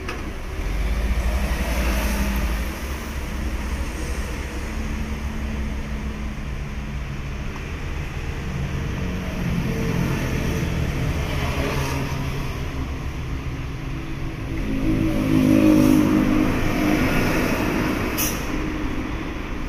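Forklift engine running while it carries a load of timber planks, revving up about a second in and again, louder and rising in pitch, about three-quarters of the way through. A single sharp click or knock comes near the end.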